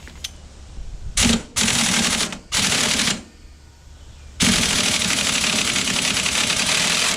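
Pneumatic impact wrench hammering on a bolt in short bursts, then in one long run of about three seconds, working it loose.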